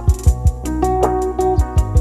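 Background music: a plucked-string melody over a steady kick-drum beat.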